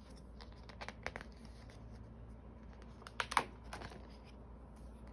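Photobook pages being turned and handled: scattered light clicks and paper rustles, with a louder rustle of a page a little over three seconds in.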